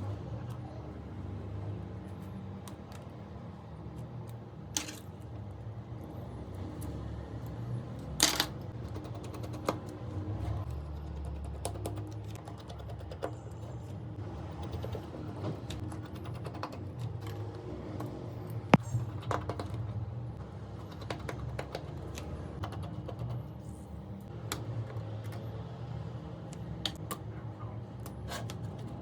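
Small, irregular clicks and taps of metal tools and tiny parts against an iPhone 4's casing and the work surface during disassembly. Two sharper knocks stand out, about 8 and 19 seconds in, over a steady low hum.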